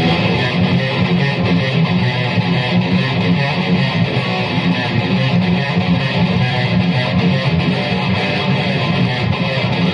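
Epiphone Les Paul Nightfall electric guitar played in fast, continuous riffs, with the weight on the low notes. It is being tested for playability after a fret level and setup.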